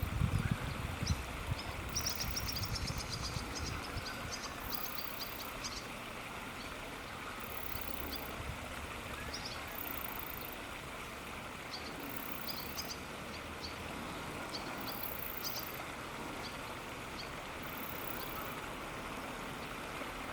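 Steady rush of flowing water with clusters of short, high bird chirps, densest in the first six seconds and returning now and then after. A low rumble sits under the first few seconds, and a faint high hiss pulses about every two and a half seconds.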